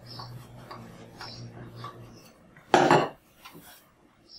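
Wooden rolling pin rolling out pita dough on a wooden board in soft, repeated strokes, then a loud knock about three seconds in as the pin is set down and the dough sheet lifted.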